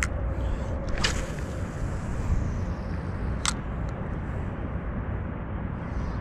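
Steady low wind rumble on the microphone. About a second in there is a cast with a spinning rod: a swish as line pays off the reel, fading over a second or two. A sharp click follows a couple of seconds later.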